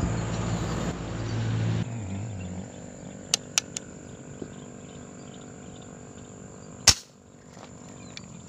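A single sharp shot from a homemade fish-shooting gun, fired into a canal, about seven seconds in. Two lighter clicks come about three and a half seconds in, over a faint steady outdoor background.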